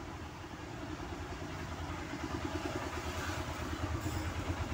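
A low, fast-pulsing engine rumble, like an engine idling, growing louder toward the end.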